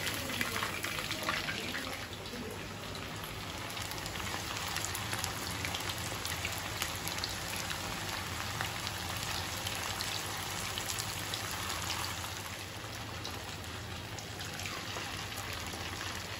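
Batter-coated boneless chicken pieces deep-frying in hot oil in an iron kadai: a steady crackling sizzle.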